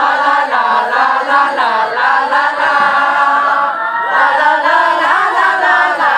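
A large group of scouts singing a chant together in unison, loud and without a pause, as a troop cheer performed with arm movements.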